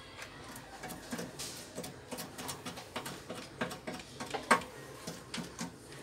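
Small irregular clicks and taps of multimeter test probe tips against the terminals and sheet-metal chassis of a microwave oven, with one louder click about four and a half seconds in.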